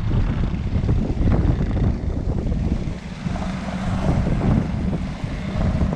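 Wind buffeting the microphone in gusts, a heavy low rumble, over traffic on a wet road.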